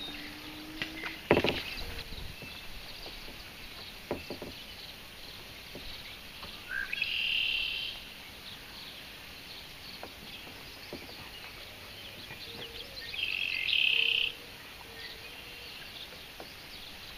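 Marsh birds calling: a loud buzzy trilled song about a second long, sung twice, among faint scattered chirps. About a second in there is a sharp knock with a low thump, and a smaller knock a few seconds later.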